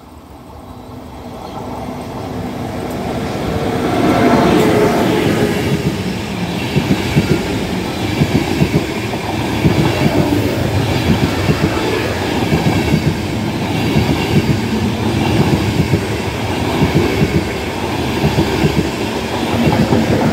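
Electric-hauled Nightjet sleeper train approaching and passing close by without stopping. Its noise builds over the first few seconds and peaks about four seconds in as the front goes past. After that the coaches run by with a steady rush and a rhythmic clatter of wheels on the rails.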